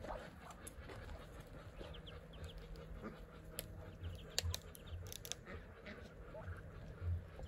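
Muscovy ducklings peeping now and then in short high chirps, with a few sharp clicks and soft low thumps around the middle; the loudest is a click about four and a half seconds in.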